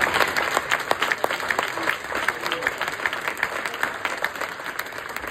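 Audience applauding, dense clapping that gradually thins and fades toward the end.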